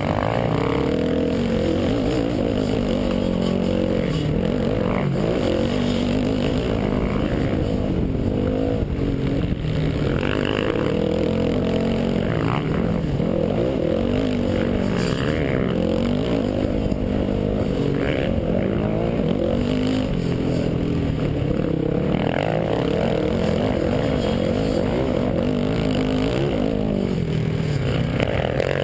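Dirt bike engine under hard riding, heard from the rider's helmet, its revs climbing and dropping again and again with throttle and gear changes over a rough dirt trail.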